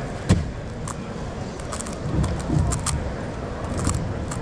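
A plastic megaminx puzzle being turned fast during a speedsolve: a quick, uneven run of clicks and clacks as its faces snap round, the sharpest one about a third of a second in, over a low steady background hum.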